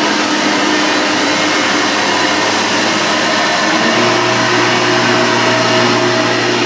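Hoover Runabout vacuum cleaner running on its low setting over thick-pile carpet, picking up oats, with a steady, fairly low-pitched motor drone. Its hum changes slightly about four seconds in.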